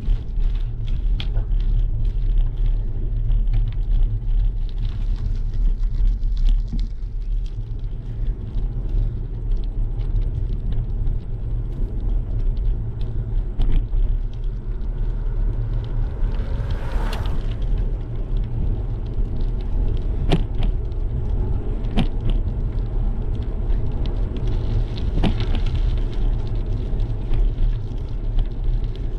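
Low rumble of wind buffeting and tyre noise picked up by a GoPro riding on a bicycle along a paved path, with scattered clicks and rattles from the bike. A brief hiss swells and fades about halfway through.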